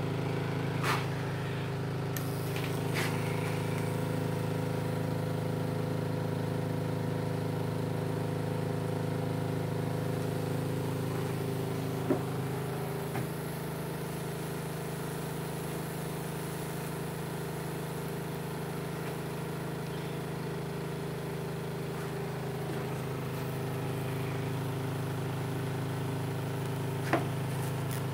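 Steady electrical hum of a high-voltage transformer driving a Lichtenberg fractal burn through wet wood, broken by a few sharp snaps of arcing at the electrodes. The hum shifts slightly about twelve seconds in as the burn path changes.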